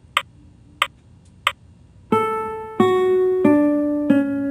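Scale-trainer software playing back a D major 7 arpeggio downward at 92 notes per minute, in a synthesized instrument tone. Three evenly spaced count-in clicks come first. About two seconds in, four held notes follow, each lower than the last, one per beat.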